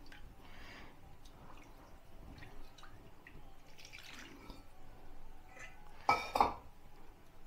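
Faint kitchen handling sounds: soft taps and drips of a spoon and a vessel as milk is worked into mawa, with one louder clink about six seconds in.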